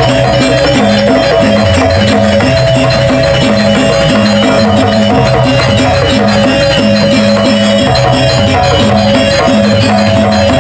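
Balinese janger music: a steady percussion beat under sustained ringing tones.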